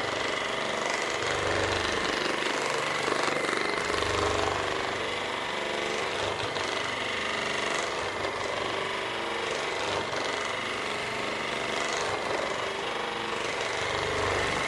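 Handheld electric vibration massager buzzing steadily as it is worked over the back.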